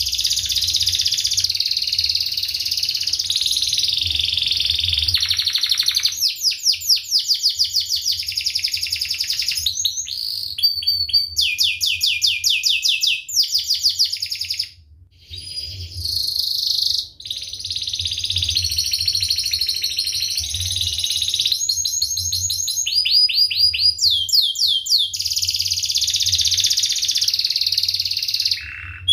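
Domestic canary singing continuously in phrases of fast, tightly packed trills (rolls) and chirps, each a rapid run of repeated high notes, with a couple of brief pauses about halfway through. A faint low hum runs underneath.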